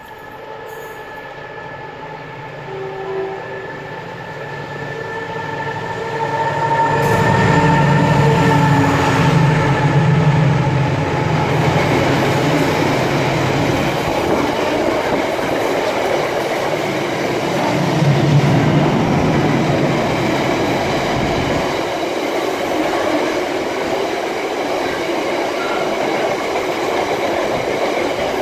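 Freightliner Class 70 diesel locomotive, with its GE PowerHaul V16 engine, draws closer and passes with a deep engine drone. A long train of loaded container wagons follows, their wheels rumbling over the rails. The sound builds over the first seven seconds or so and then stays loud.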